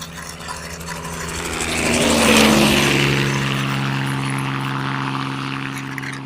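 Helicopter engine and rotor sound, a steady hum that grows louder to a peak about two seconds in and then slowly fades, like a helicopter flying past.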